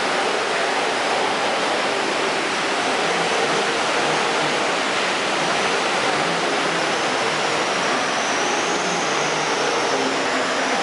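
Seawater surging and churning around rocks in a sea cave, a steady unbroken rush of water.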